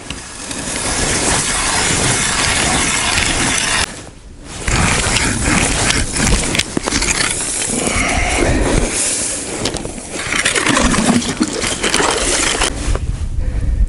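Hand ice auger being cranked, its cutting blades scraping and grinding through the ice as a hole is drilled. It runs in two long spells with a short pause about four seconds in, and eases off shortly before the end.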